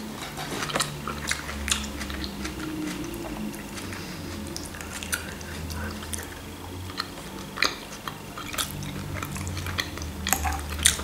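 Close-up chewing of a mouthful of shell pasta with minced-meat sauce, soft and wet, with many short sharp clicks and smacks scattered through it.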